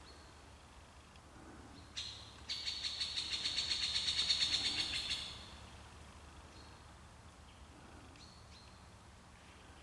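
A bird's high, rapid trill lasting about three seconds, with a few short high chirps before and after it.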